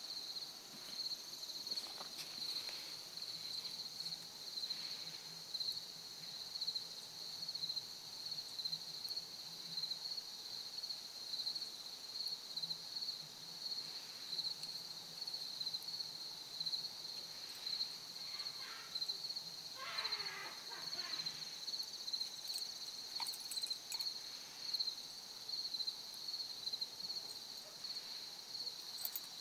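Crickets chirping in a steady, pulsing chorus.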